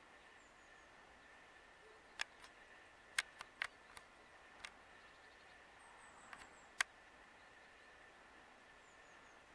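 Quiet open-field ambience with a faint steady high whine and a few faint high chirps. About nine sharp, short clicks fall between about two and seven seconds in, some in quick pairs.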